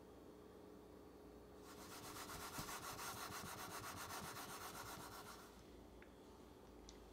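Round aluminium cake pan shaken quickly back and forth on a wooden board, a rapid rubbing scrape lasting a few seconds, settling the cheesecake filling level.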